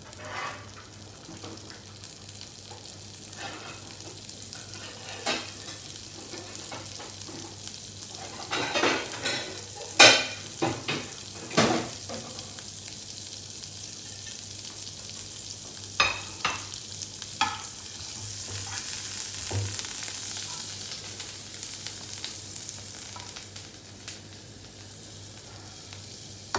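Garlic butter melting and sizzling in a hot nonstick frying pan, a soft steady hiss that grows louder past the middle. A few sharp clicks and knocks come in two clusters, about a third of the way in and again just past halfway.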